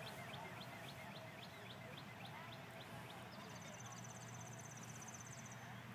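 Faint outdoor ambience with a small bird calling: a quick, even run of high chirps, then a fast high trill of about two seconds starting about halfway through.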